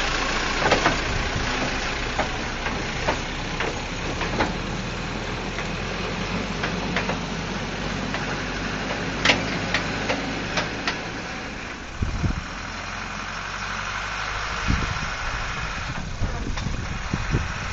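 Caterpillar 416C backhoe's Perkins turbo diesel engine running steadily, with scattered sharp knocks over it; the engine note drops briefly about twelve seconds in and then settles again.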